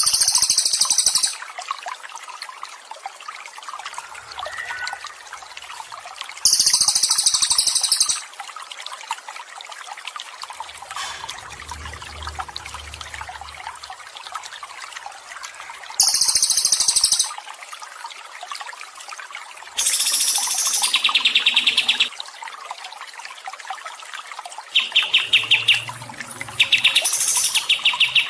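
Songbird calls over steadily trickling water. There are loud, very high chirping phrases of about a second each at the start, around a quarter of the way in and past the middle, then rapid buzzy trills in the last third.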